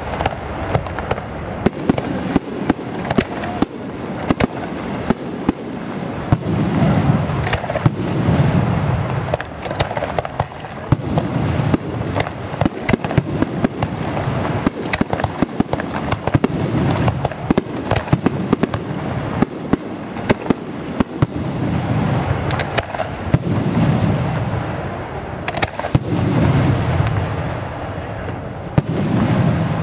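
Aerial firework shells bursting in quick succession: many sharp cracks and bangs throughout, over deeper rolling booms that swell and fade every few seconds.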